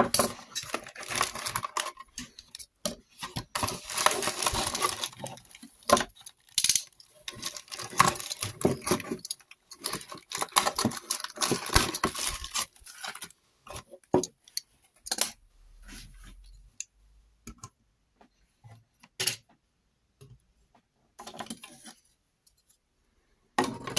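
Paper and cardboard packaging rustling and tearing, mixed with clicks and knocks of a plastic Optimus Prime action figure being handled as it is unpacked. The rustling is busy for about the first half, then gives way to scattered clicks.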